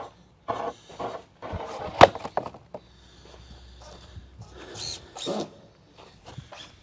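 2x6 form lumber being handled, with one sharp wooden knock about two seconds in and lighter scuffs and knocks around it, then a faint steady hum for a couple of seconds.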